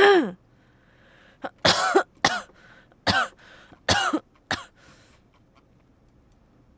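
A person coughing in a fit: about seven harsh, voiced coughs, one right at the start and a quick run between about one and a half and four and a half seconds in. The cough comes from a throat cold.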